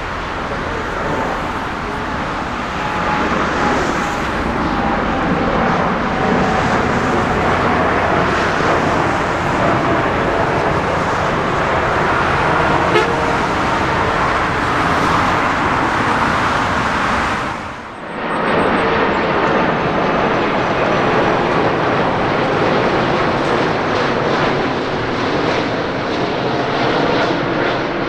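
Jet airliner engines running loud: a steady rush with a faint whining tone over it, broken by a short dip about eighteen seconds in.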